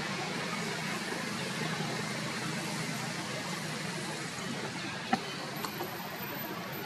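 Steady outdoor background noise like distant road traffic, with one sharp click about five seconds in and a thin high whine coming in shortly after.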